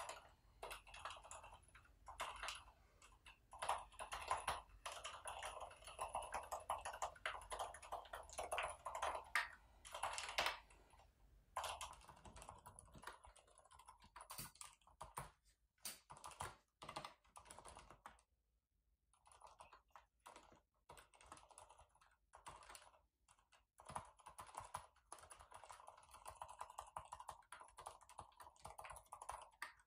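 Continuous fast typing on a Mars Pro Vesta mechanical keyboard with Cherry MX Silent Red switches: soft, damped keystrokes from silent linear switches. The typing breaks off briefly a little past halfway, then resumes.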